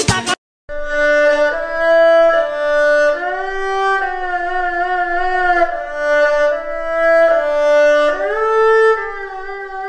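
Background music: a slow melody of long held notes with vibrato, starting after a short gap just after the start.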